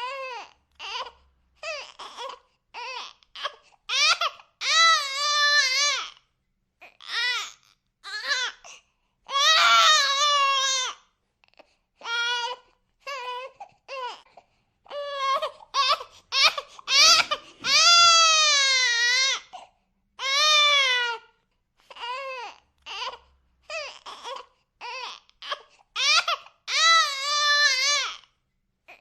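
A baby crying in repeated high-pitched wails, some short and choppy, some drawn out for a second or two and falling in pitch at the end, with brief silent pauses for breath between them.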